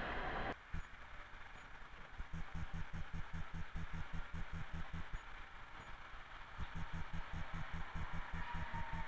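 Loud street noise from a tram passing close by cuts off about half a second in, leaving distant city traffic as a tram approaches. Under the traffic a fast low thumping runs at about five a second, and a faint falling squeal, typical of tram wheels on curved track, comes in near the end.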